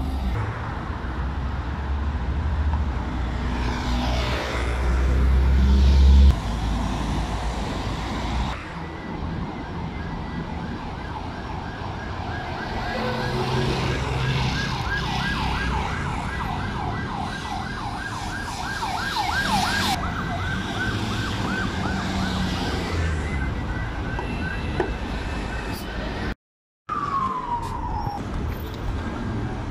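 Emergency-vehicle siren in fast yelp mode: a quick rising-and-falling wail repeating several times a second, over street traffic. A heavy engine rumble runs through the first several seconds. Near the end the sound cuts out briefly, and a single falling tone follows.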